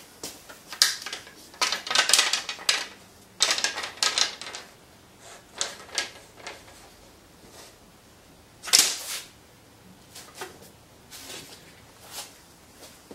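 Wooden balls on a pendulum wave machine clacking against a wooden stick and each other as they are caught and lined up, in scattered bursts of sharp clicks and knocks; the loudest knock comes about two-thirds of the way through.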